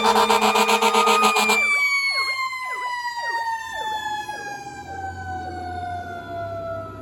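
Fire truck's mechanical Q siren winding down, its wail sliding steadily lower in pitch and fading as the rotor coasts. A horn blares over it for about the first second and a half and then cuts off abruptly.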